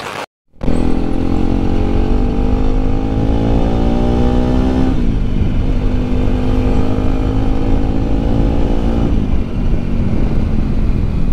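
Bajaj Pulsar RS 200's single-cylinder engine pulling hard under acceleration, its pitch climbing steadily, then dropping sharply at an upshift about five seconds in. It pulls again and drops once more about nine seconds in. A brief dropout comes at the very start.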